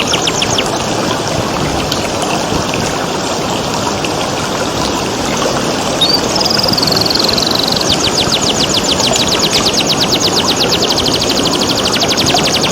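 Domestic canary singing over a steady wash of running water. A short run of quick falling notes opens the passage, followed by a few seconds of water alone. About six seconds in comes a high trill, which breaks into a long, fast string of rapid repeated notes.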